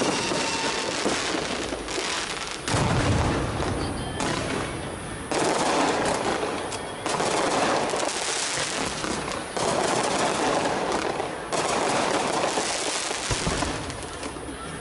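Fireworks and firecrackers going off in dense, rapid crackling volleys, a new volley starting abruptly about every two seconds.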